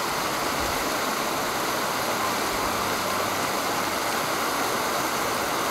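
Steady rush of water pouring out of an outflow and churning into the river.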